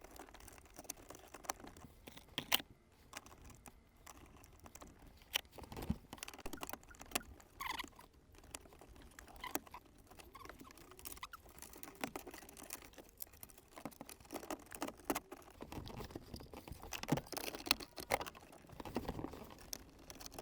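Faint, rapid, irregular clicks, taps and rattles of plastic dashboard trim and metal brackets being handled and fitted back into place, sped up by fast-forwarding.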